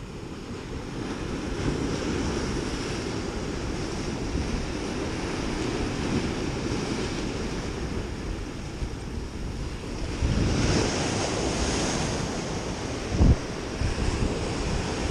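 Ocean surf breaking and washing over rocks, with wind buffeting the microphone; the wash swells about two-thirds of the way in. A couple of brief low thumps near the end.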